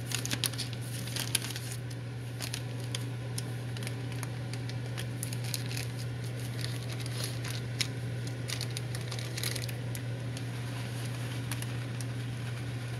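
Pot of ziti in tomato sauce crackling and popping irregularly on a stove burner, over a steady low hum.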